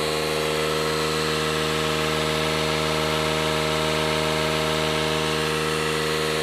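DeWalt 20V cordless tire inflator running steadily with an even hum, pumping air into a low golf-cart tire.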